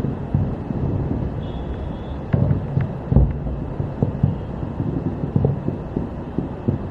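Distant fireworks booming: irregular low thuds with a few sharper bangs about two to three seconds in, over a rumble of wind on the microphone.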